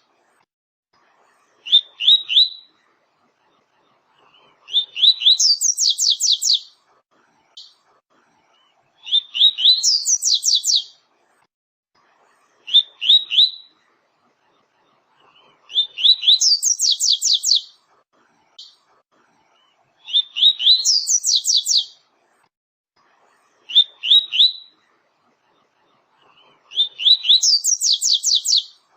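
Double-collared seedeater (coleiro / papa-capim) singing its 'tui-tui' song. Phrases come every three to four seconds: two or three quick rising whistled notes, usually followed by a fast run of higher notes. A few phrases stop after the opening notes.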